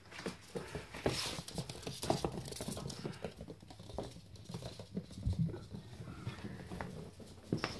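Toy Fox Terrier puppies' claws pattering and clicking on a laminate floor as they run about, in quick irregular taps.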